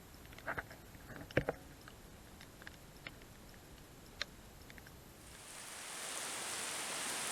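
Scattered sharp clicks and crunches, then about five seconds in a steady hiss of rain falling comes up and holds.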